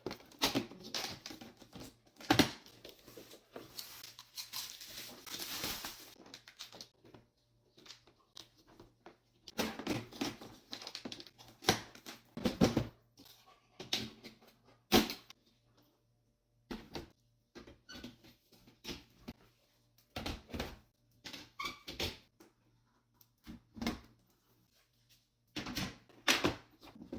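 Parts of a storage organizer being handled and fitted together: irregular knocks and clicks with stretches of rustling, loudest in the first few seconds and at about ten to thirteen seconds in.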